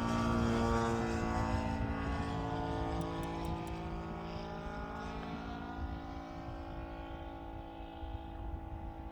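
Model airplane's Saito FG-60R3 three-cylinder four-stroke radial engine running steadily in flight, its note drifting slightly in pitch and growing fainter as the plane moves away.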